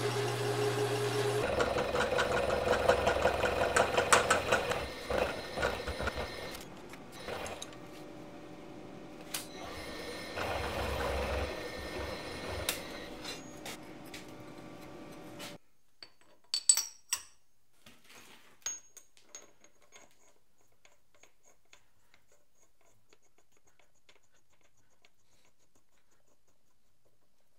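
Metal machining: a metal lathe running with a steady hum, then loud cutting with rapid clicking chatter as metal is turned and an end mill cuts a part. About fifteen seconds in the machine sound cuts off abruptly, leaving near quiet with a few light metallic clicks and taps as metal parts are handled.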